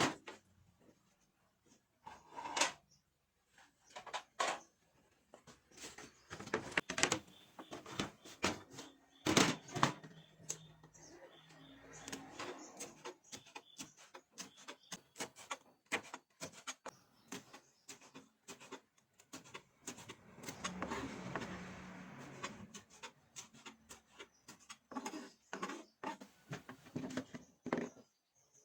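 Kitchen preparation sounds: scattered knocks and clatter of utensils, bowls and containers being handled, with a longer stretch of rustling noise about two-thirds of the way in.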